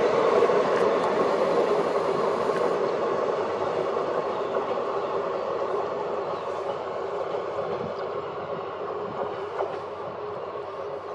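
Passenger train running by on the track and moving away, its rolling rumble and wheel clatter fading steadily. A steady tone runs through the noise.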